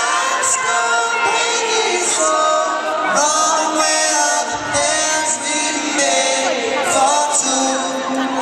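Several male voices singing a cappella in harmony, with no instruments, and an arena crowd heard behind them.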